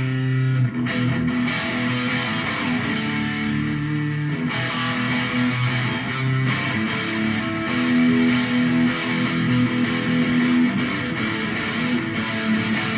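Harley Benton electric guitar played by a beginner: held notes and chords that change every second or so, ringing on without a break.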